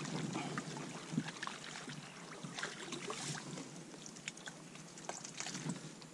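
Shallow pond water sloshing and dripping as a round mesh dip net is worked through it and lifted out, with a few small splashes.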